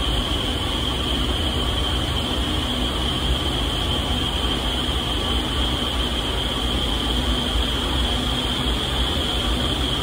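Vertical wind tunnel running at flying speed: a steady, unbroken rush of air from its fans, with a constant high hiss on top.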